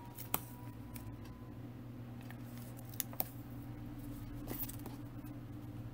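Scissors snipping double-sided foam tape and hands handling the tape on a paper card panel: a few faint, scattered clicks and snips.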